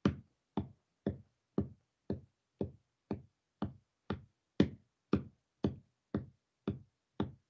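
A steady tapped beat, about two sharp taps a second, keeping time for a sung line while no one sings over it.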